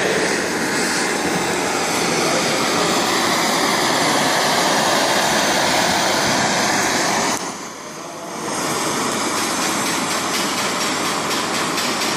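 Gas blowtorch flame burning steadily as a copper pipe fitting is heated for soldering. It drops away briefly about seven and a half seconds in, then comes back.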